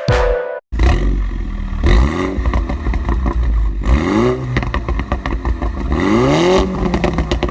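MINI F56 John Cooper Works' turbocharged four-cylinder with Gruppe M intake and JCW-Pro exhaust, revved up three times, each rev rising and then dropping back, with crackles from the exhaust between the revs.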